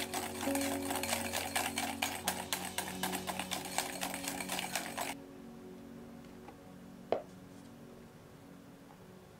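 Wire whisk beating a creamed butter mixture in a glass bowl: fast, even clicking of the wires against the glass, which stops abruptly about five seconds in. One light tap follows about two seconds later.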